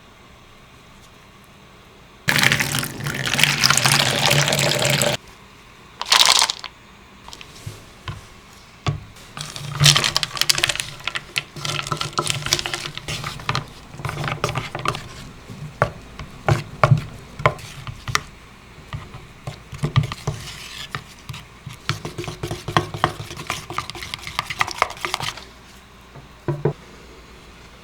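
Baking preparation sounds: a few seconds of liquid pouring or running, a short second burst, then a long run of irregular light clicks and scrapes of utensils working in a bowl.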